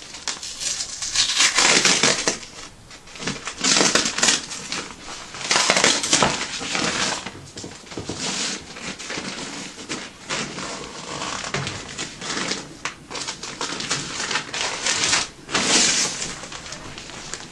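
Packaging being pulled off and handled, crinkling and rustling in repeated bursts.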